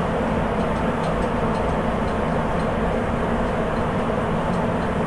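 Running noise of a Sapporo Municipal Subway 8000 series train (Toshiba IGBT-VVVF, rubber-tyred), heard from inside the car as it runs at a steady speed through the tunnel. The noise holds level, with no change in pace.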